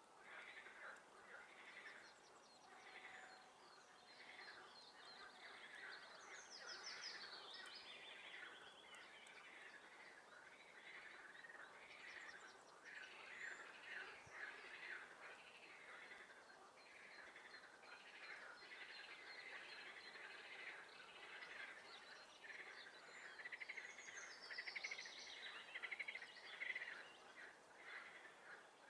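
A dense chorus of frogs calling, many rapid pulsed calls overlapping without pause. Songbirds sing higher above it now and then, most plainly about seven seconds in and again near the end.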